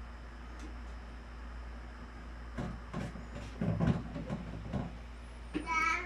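Scattered soft knocks and bumps of plastic as a toddler handles a small bottle against a large blue plastic water container, over a steady low hum. Near the end comes a short vocal sound from the child.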